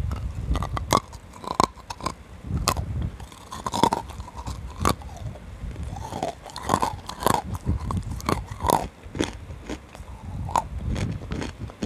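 Close-miked biting and chewing of dry, fully roasted nkumt lumps: a run of sharp, irregular crunches as the hard pieces crack between the teeth, with chewing in between.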